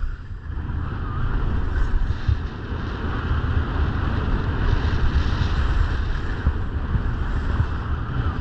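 Wind rushing over the microphone of a skier's camera on a downhill run, a steady heavy rumble, with the continuous hiss of skis sliding on packed, groomed snow.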